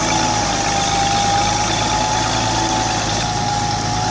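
An engine running steadily at a constant speed, with a steady high whine over a low hum.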